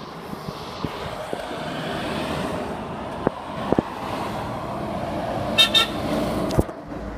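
A lorry approaches along a dual carriageway and passes beneath, its engine and tyre noise rising steadily. A brief high-pitched toot sounds about five and a half seconds in.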